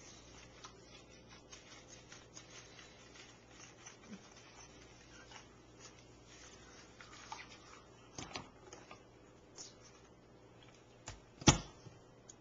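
Faint scattered ticks and rustling as a wet puppy is handled and washed in a kitchen sink, then one sharp knock near the end.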